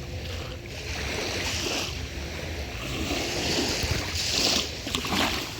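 Small ocean waves washing in at the shoreline in hissing swells, a few times, over a low rumble.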